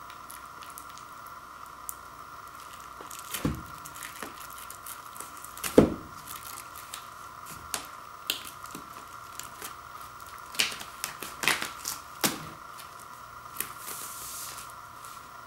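Plastic shrink-wrap on a vinyl LP box being picked at with fingers and torn open: scattered crinkles and crackles, with a few louder knocks from handling the cardboard, the loudest about six seconds in.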